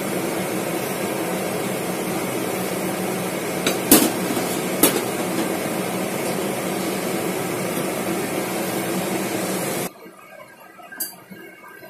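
Steady hiss and hum of a kitchen stove at work, with two sharp clanks of kitchenware about four and five seconds in. The noise cuts off abruptly near the end.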